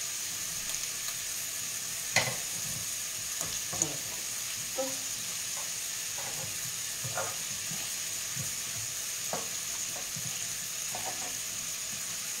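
Soffritto with carrot and meat frying steadily in a stainless steel pan, a constant sizzle. Over it come a few short knocks of a knife on a wooden cutting board as sausage is cut into pieces; the sharpest is about two seconds in.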